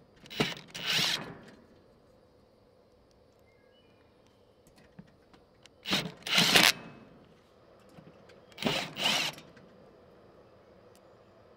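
Cordless impact driver driving self-tapping screws through metal hinges into a wooden lid, three short bursts of about a second each, each in two quick spurts.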